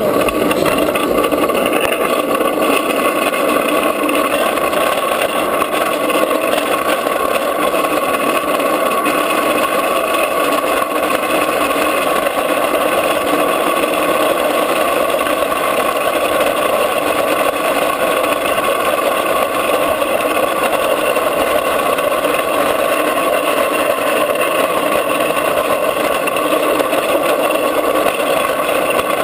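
Drift trike rolling fast down an asphalt road: a steady roar of its hard wheels on the road surface.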